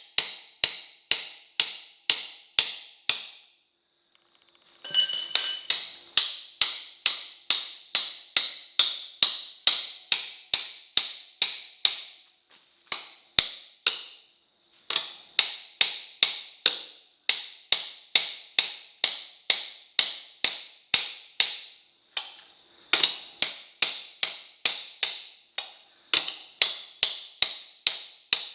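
Rapid, even hammer blows on metal, about three a second, each with a short ringing tone, in runs broken by brief pauses. This is hammering to work a motorcycle tyre's bead free of its spoked wheel rim.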